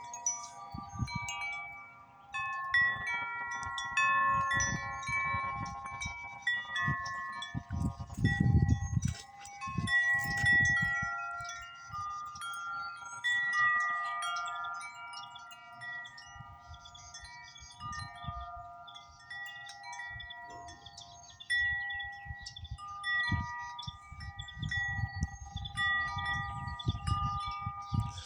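Wind chimes ringing in gusty wind: several sustained notes struck at irregular moments and overlapping as they fade. Wind buffets the microphone in low rumbling gusts near the middle and again near the end.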